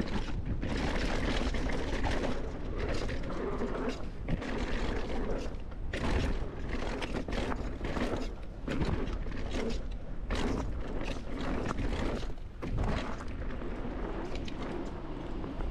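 Mountain bike riding down a dirt trail: wind buffeting the camera microphone in a steady low rumble, with tyre noise and rapid knocks and rattles as the bike runs over rough ground.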